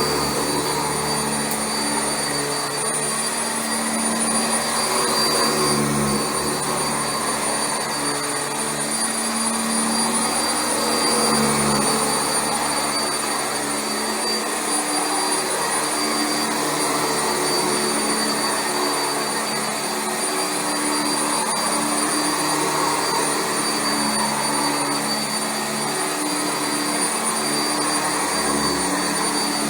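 Sanitaire SC679J commercial upright vacuum running steadily on carpet: a high motor whine over a constant rush of air, with the lower hum shifting in pitch now and then.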